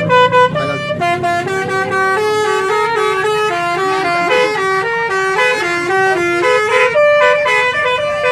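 Basuri telolet horn playing a tune: a quick run of stepped horn notes one after another, with a longer held note about seven seconds in.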